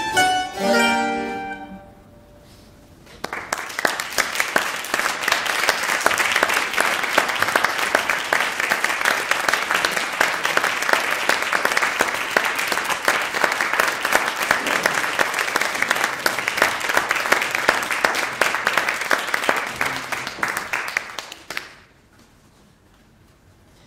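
The last plucked notes of a mandolin and harpsichord piece die away about two seconds in; after a short pause an audience applauds for about eighteen seconds, then the clapping stops fairly abruptly.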